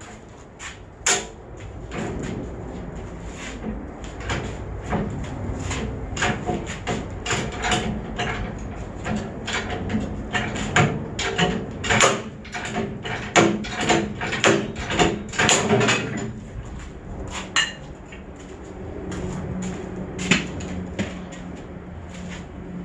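Irregular run of sharp knocks and short scraping strokes, tool work on the metal cutter blades during sharpening, busiest in the middle and thinning out near the end.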